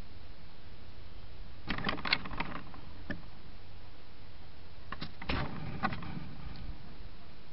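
Steady hiss of a trail camera's microphone, broken twice, about two seconds in and again about five seconds in, by short clusters of clicks, knocks and scrapes as an animal comes up against the camera and moves off.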